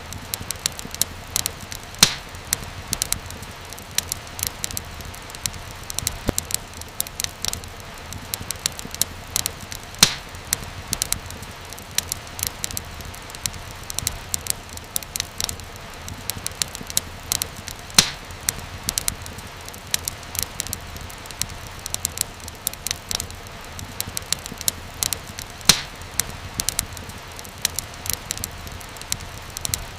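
Wood fire crackling steadily, with many small sharp pops and a few louder snaps over a low, steady rumble.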